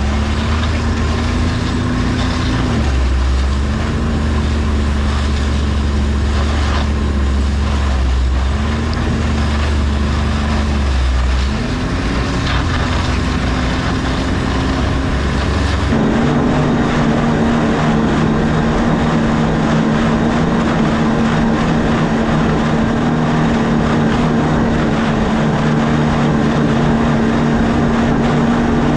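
A motor vehicle's engine running hard and steadily, its pitch dipping briefly three times as the revs drop and pick up again. About halfway through the sound switches abruptly to a steadier, even engine drone.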